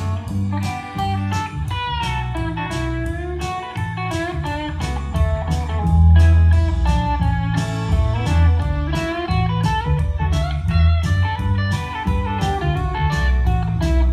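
Blues-style electric guitar music with a steady drum beat and bass, played over loudspeakers in a small room and sounding dull because the walls and floor reflect it.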